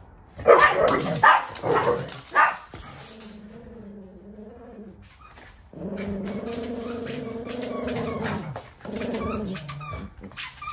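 Pet dogs, a corgi and a Maltese, sounding a guarding alarm at someone creeping up: a quick run of about five sharp barks in the first couple of seconds, then long drawn-out growls.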